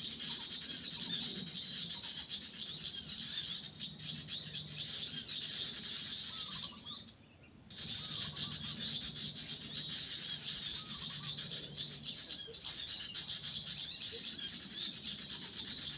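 Dense, continuous chirping of many small birds, with repeated short high downward-sliding calls. The whole chorus drops out for about a second around seven seconds in, then resumes.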